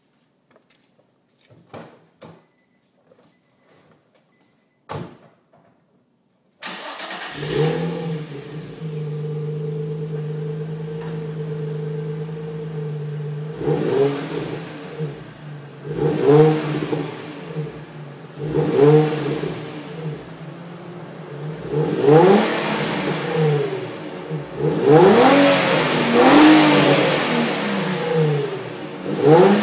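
A few faint clicks, then a stock-exhaust 2007 Infiniti G35 coupe's 3.5-litre V6 starts suddenly about six and a half seconds in. It settles into a steady idle, then is blipped and revved repeatedly, each rev rising and falling back toward idle, the revs coming more often and climbing higher near the end.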